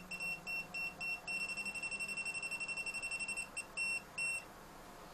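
UNI-T UT12M-EU non-contact voltage detector beeping as it senses a live mains cable. A few separate high beeps speed up about a second in to rapid, almost continuous beeping, then slow to a few beeps that stop about four seconds in. The beep rate steps up as the detector senses a stronger field.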